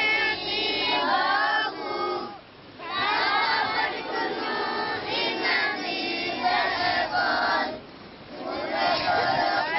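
A group of children singing together in unison, in phrases, with short breaks about two and a half seconds in and again near the eight-second mark.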